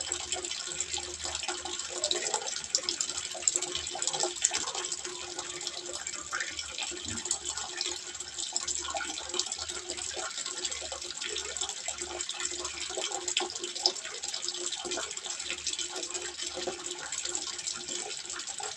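Water trickling and splashing steadily into a small fish pond.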